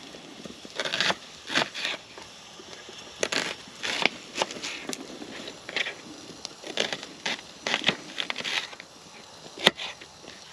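Knife cutting an onion on a chopping board: irregular crunching cuts with crackle, and one sharp knock near the end.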